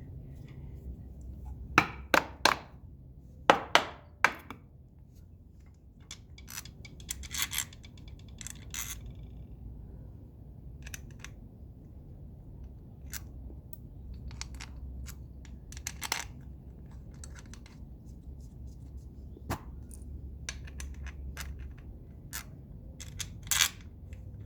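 Metal bolts clinking, tapping and scraping against a motorcycle engine's side cover as they are handled and started into their holes: scattered sharp clicks, the loudest in two quick clusters near the start, with a brief metallic ring about a third of the way in.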